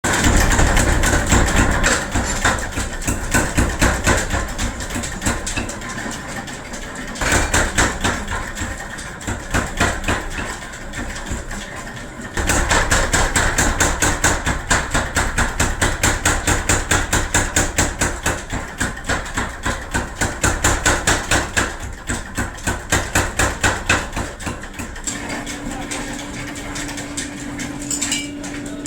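A machine-driven forging hammer striking metal over and over in a fast, steady rhythm, with a motor running underneath. The blows ease briefly about two seconds and twelve seconds in, and near the end they stop, leaving only the motor's steady hum.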